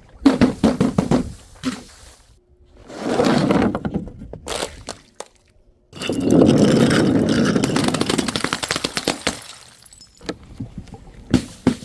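A run of smashing and crunching: short clusters of sharp breaking impacts, then a long dense crunch of about three and a half seconds, and a few more sharp cracks near the end.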